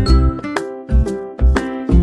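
Background music with a steady beat, about two strong notes a second, over a deep bass line.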